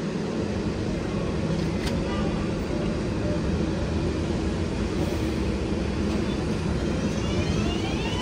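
R188 subway train on the elevated line closing its doors and pulling out: the steady hum of the standing train, a single knock about two seconds in, then the rising whine of its AC traction motors starting up near the end as it begins to move.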